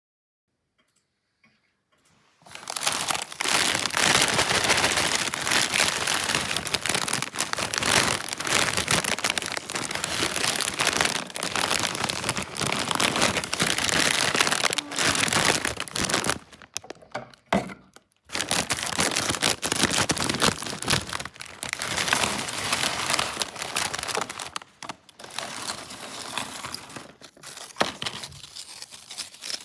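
Crinkly plastic tortilla-chip bag crumpling and rustling as it is handled, in two long stretches with a short pause a little past the middle.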